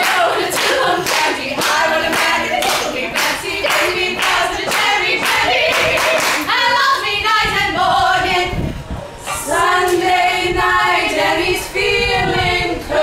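A cappella female vocal group singing in harmony, accompanied by rhythmic hand clapping about twice a second. The clapping stops about six and a half seconds in, and the voices carry on unaccompanied.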